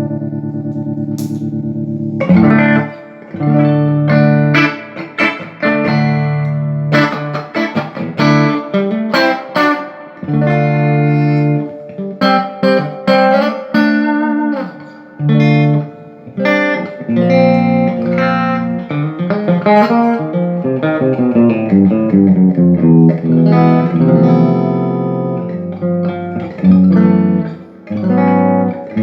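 Electric guitar played through a Fender '65 Deluxe Reverb Reissue tube amp, freshly fitted with new power tubes and biased. A held chord rings for about two seconds, then a string of picked notes and chords follows.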